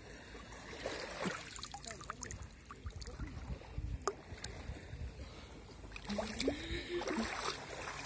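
Shallow sea water sloshing and trickling around wading feet and a hand at the shoreline, with small drips and splashes. About six seconds in, a short rising hum of a voice.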